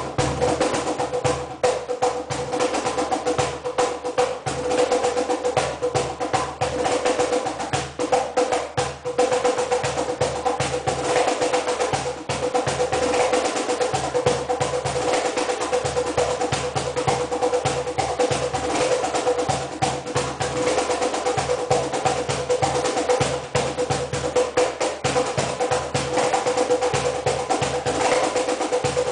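Music of fast, dense cajón drumming, rapid hand strikes with a snare-like rattle, over a steady held note.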